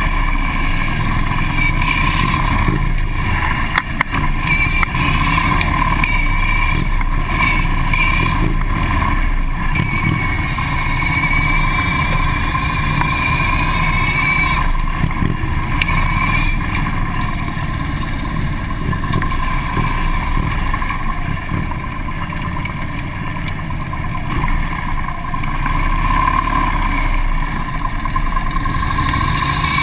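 Harley-Davidson police motorcycle's V-twin engine running under way, heard from a camera mounted on the bike. Its pitch rises and falls a little with the throttle.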